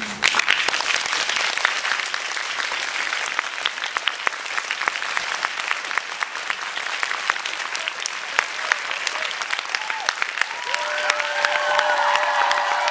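Audience applauding steadily, with sharp, loud claps from a pair of hands close to the microphone. About ten and a half seconds in, voices start calling out over the clapping.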